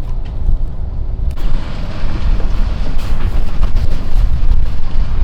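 Wind buffeting the microphone: a loud, low rumble with a hiss over it that thickens about a second and a half in.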